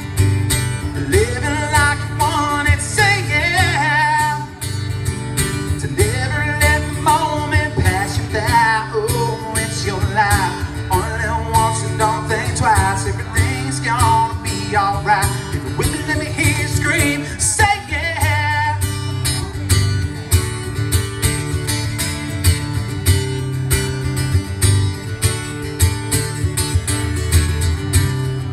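Live music played through PA speakers: an amplified acoustic guitar strummed over a steady bass line, with a wordless sung melody over the first two-thirds. The melody gives way to guitar alone about two-thirds of the way through.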